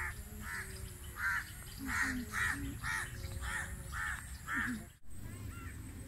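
A crow cawing, about nine caws in a quick even series of roughly two a second, cutting off suddenly about five seconds in.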